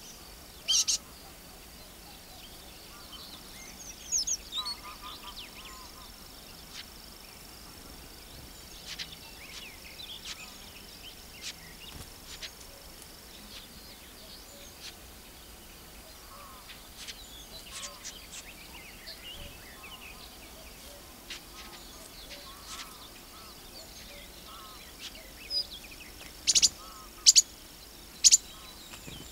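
Small songbirds singing and calling, mostly brief high chirps and trills. A few much louder short calls come close to the microphone just after the start and three times near the end. A thin, steady high tone runs through the first half.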